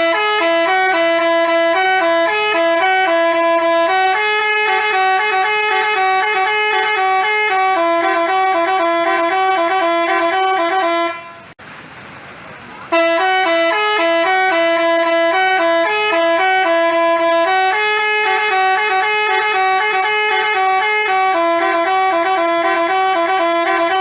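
Basuri telolet musical bus horn playing a stepping multi-note tune of held horn tones. The phrase runs about eleven seconds, stops briefly near the middle, then repeats the same tune.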